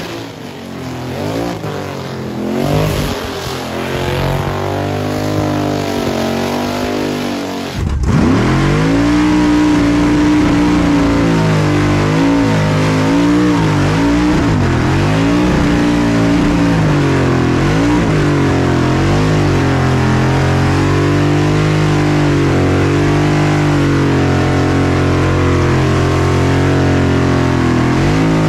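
Car engine held at high revs during a burnout, the revs rising and dipping over and over against the noise of spinning tyres. About eight seconds in, the sound jumps louder and closer, heard from inside the car's cabin.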